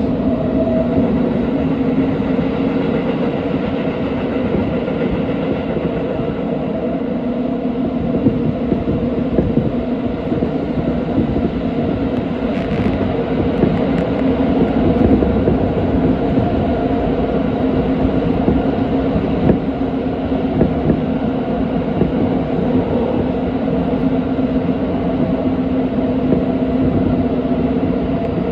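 Tokyo Metro 17000 series subway train running at speed through a tunnel, heard from inside the car. Wheels rumble steadily on the rails with some clickety-clack, under a steady hum of a few tones.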